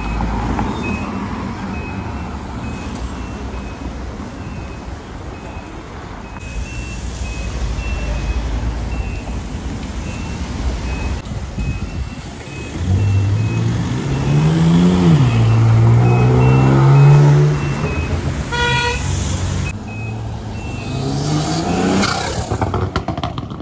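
Roadside traffic with a car engine revving hard, rising and then falling in pitch and holding a steady note as it passes, then a short horn honk and another rising rev near the end. A repeating high beep runs through it all.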